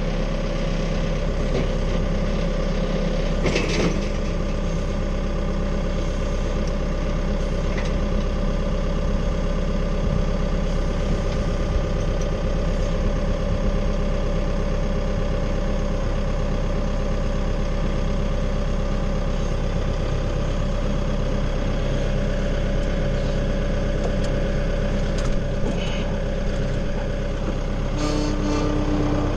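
An engine idling steadily, with a single short knock about three and a half seconds in.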